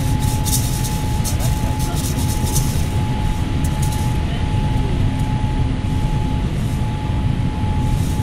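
Steady low roar of engines and rushing air inside an airliner cabin in flight, with a steady high hum over it. A run of light ticks comes through in the first few seconds.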